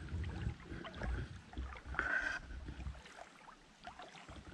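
Gusting wind buffeting the camera microphone, with small scuffs and clicks and a brief brighter rasp about two seconds in.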